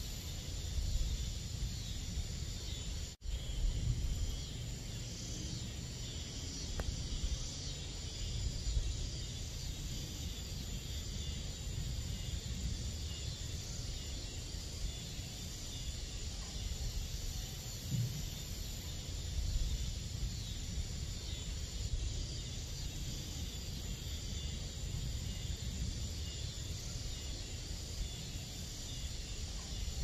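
Steady chorus of summer-night insects, crickets among them, with a steady low rumble underneath. The sound cuts out for an instant about three seconds in.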